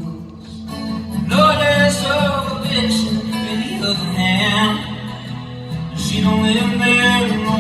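A man singing with a strummed acoustic guitar in a live solo performance; the voice comes in about a second and a half in over the guitar, pauses briefly, and carries on.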